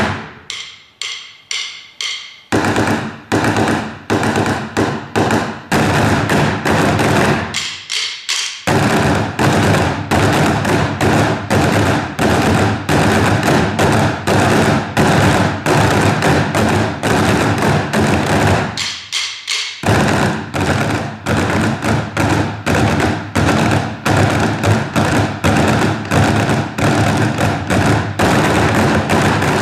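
A percussion group playing a fast, dense rhythm of sharp wooden and thumping hits. It thins to a few sparse strokes at the start, about 8 seconds in and again near the 19-second mark.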